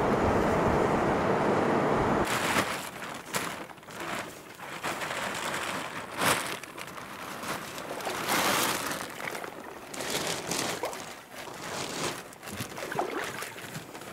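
A steady rushing noise from a boat under way on the river for about two seconds, then it stops abruptly. Irregular rustling, crinkling and knocks of waterproof bags and camping gear being handled on a stony shore follow.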